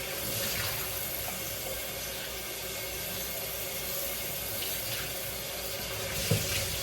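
Cold water running steadily from a kitchen tap over raw catfish fillets as they are rinsed, with a light knock about six seconds in.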